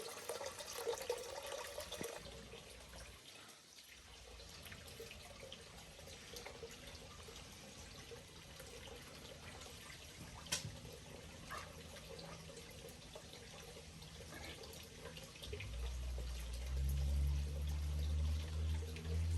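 Steady trickling of water from a backyard pond waterfall, with scattered small clicks and one sharp click about ten seconds in. A loud low hum comes in about three seconds before the end.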